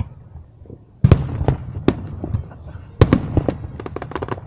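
Aerial fireworks bursting: a sharp loud bang about a second in with a few scattered pops after it, then another bang about three seconds in followed by a rapid run of crackling pops.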